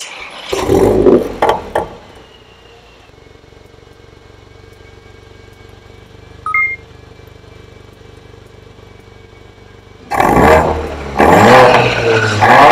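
Mercedes-Benz CLA45 AMG's turbocharged four-cylinder through an Armytrix valved exhaust: a loud flare and two short blips, then a steady low idle with the exhaust valves set to off. A short two-tone electronic beep sounds about halfway through, and near the end the engine is revved hard twice.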